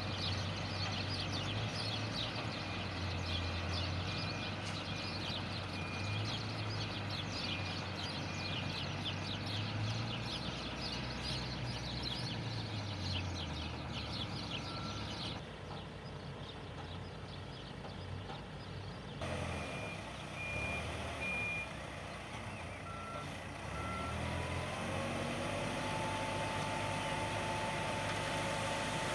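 Engine of a mobile concrete mixer running steadily, with a reversing alarm sounding in short runs of evenly spaced beeps twice. A steady whine comes in near the end.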